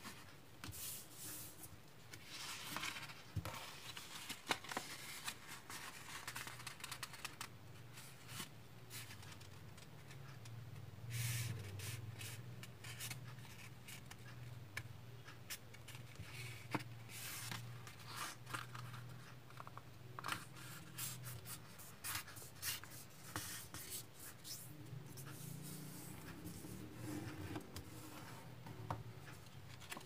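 A 14 cm square of origami paper being handled and folded by hand: faint, irregular crisp rustles and crackles as the sheet is lifted and turned, and rubbing as fingers press along the creases.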